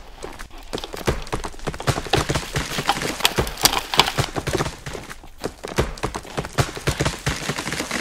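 Quick, heavy footsteps crunching through snow, several steps a second in an uneven rhythm.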